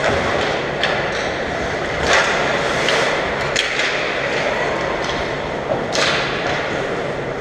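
Ice hockey play on an indoor rink: a steady rink din with skates scraping on the ice and several sharp clacks of sticks and puck spread through it.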